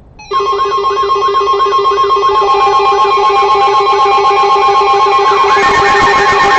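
Emergency alert tones from weather radio receivers: a steady high tone, a fast-pulsing lower tone and a warbling siren-like tone that rises and falls about one and a half times a second, all starting suddenly just after the start. A second steady tone joins a couple of seconds in, and the warble grows louder near the end. The alarm signals a tornado warning test.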